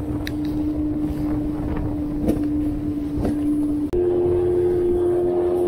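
A small motorboat's motor running steadily, with a constant whine under wind and water noise. The whine steps slightly higher in pitch about four seconds in, and a few light knocks sound along the way.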